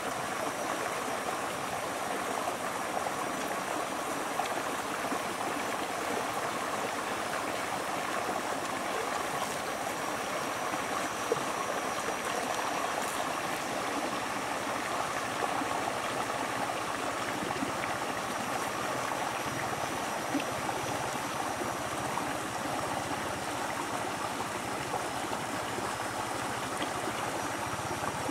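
Shallow stream running over rocks: a steady rush of water, with a few faint clicks now and then.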